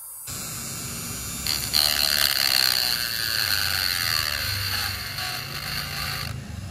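Small high-speed rotary tool running against the metal of a Zippo lighter's hinge: a high whine with grinding that starts about a second and a half in and stops near the end.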